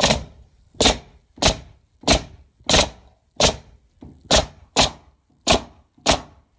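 Pneumatic Harbor Freight coil roofing nailer bump-firing 1¾-inch ring-shank siding nails into a wooden 2x4. About ten sharp shots come at roughly one every two-thirds of a second.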